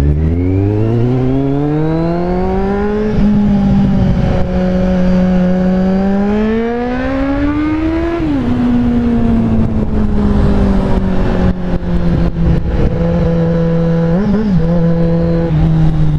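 Kawasaki Z750's inline-four engine accelerating hard: revs climb steeply for about three seconds, drop at a gear change, climb again, then fall sharply about eight seconds in and ease slowly down at a steady cruise, with a quick throttle blip near the end.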